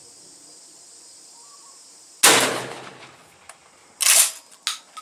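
A single 12-gauge shotgun blast from an Adler B230 straight-pull shotgun about two seconds in, ringing out briefly. Near the end come sharp metallic clacks as the straight-pull action is worked back and forward to chamber the next shell.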